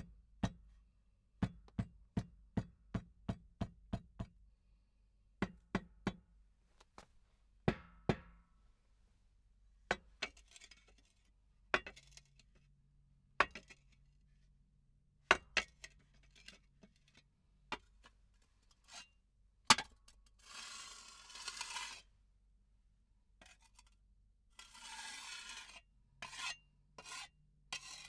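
Hoe (phawda) blade striking and scraping: a run of sharp, quick strikes, about two a second at first, then sparser single strikes, with two longer scraping sounds in the second half.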